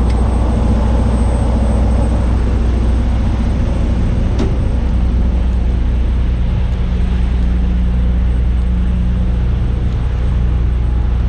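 Diesel semi-truck engine idling: a steady, even low hum, with one short click about four and a half seconds in.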